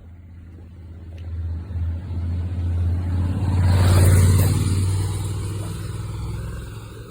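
A car driving past: a low engine and tyre rumble that grows louder, is loudest about four seconds in, then fades away.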